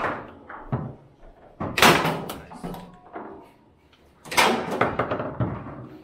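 Table-football (foosball) play: sharp knocks and bangs of the hard ball against the figures and table walls and of the steel rods being slammed, with the loudest bangs about two seconds in and again about four and a half seconds in.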